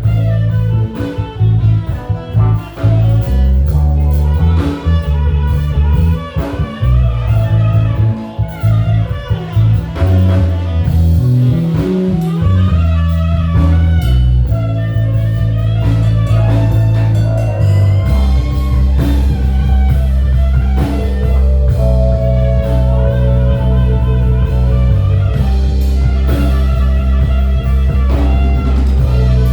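Live band playing an instrumental blues-rock passage: a lead guitar line over electric bass, drum kit and keys, with a prominent bass line moving note to note.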